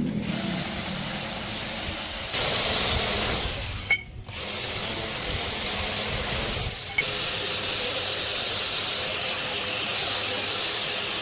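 Steady, loud hissing noise, broken off abruptly twice, about four and seven seconds in, and louder for a moment before the first break.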